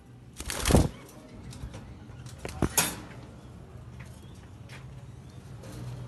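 Fischer's lovebirds flapping their wings in a wire cage: a loud burst of flapping about half a second in and a shorter, sharper one near the three-second mark, with lighter fluttering and a low steady hum between.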